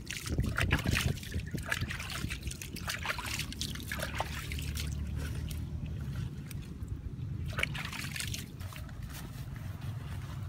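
Water trickling and splashing, with irregular small wet clicks as hands work soft mud and water around bamboo tube traps set in a muddy hole. A steady low rumble runs underneath.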